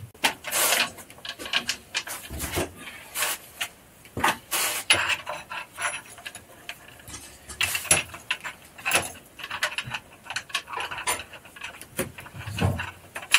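Irregular clicks, knocks and clatter of polypropylene water pipe, fittings and hand tools being handled and fitted.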